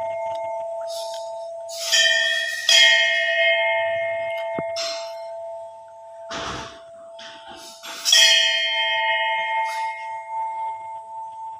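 Temple bell cluster, one large bell ringed by five small bells that all sound together when the rope is pulled. It is struck twice in quick succession about two seconds in and again about eight seconds in. Each pull leaves a long, lingering ring between strikes, and a dull thump comes near the middle.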